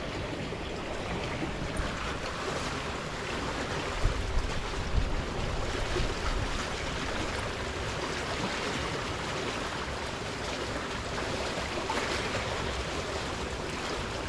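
Steady rushing noise of flowing water, with a few low bumps about four to six seconds in.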